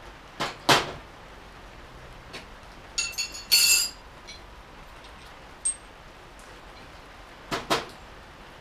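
Metal hand tools clinking and rattling as they are picked up and set down: a pair of knocks about half a second in, a ringing, jingling rattle around three and a half seconds, and a quick pair of clinks near the end.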